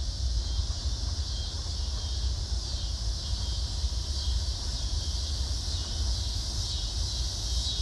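Steady high insect chorus of crickets, with a constant low rumble underneath.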